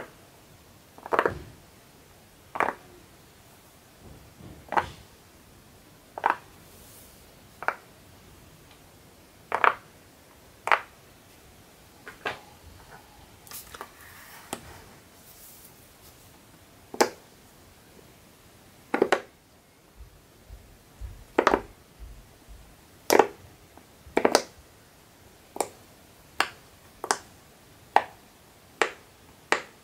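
Silicone pop-it fidget toys having their bubbles pressed one at a time, each giving a short, sharp pop, about one a second with some in quick pairs. Softer handling noise around the middle as the toy is moved.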